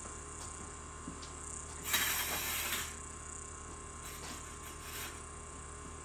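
A curtain being drawn along its rod: one brief scraping swish about two seconds in, with a few faint clicks around it.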